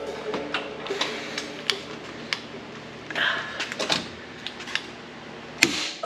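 Scattered sharp metallic clicks and clanks of hand tools, about a dozen at uneven spacing, with a short scrape a little past halfway, as a long socket extension bar is worked against the metal underside of the car.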